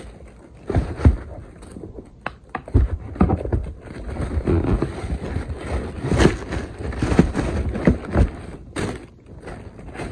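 Tissue paper crinkling and rustling, with irregular knocks and thumps, as sneakers and their wrapping are handled and lifted out of a cardboard shoebox.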